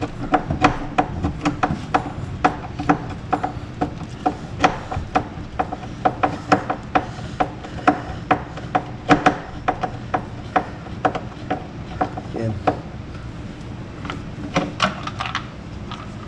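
Fast, uneven mechanical clicking, several clicks a second, over a low steady hum.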